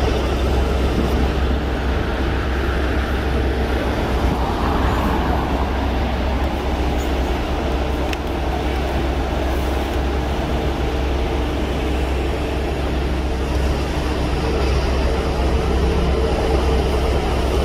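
Steady engine rumble with a constant low hum, the even noise of motors running in the background, with no clear change throughout.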